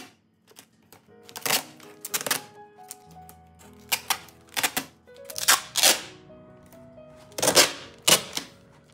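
About ten crisp clicks and crackles of cardboard being handled and worked, over soft background music with sustained notes.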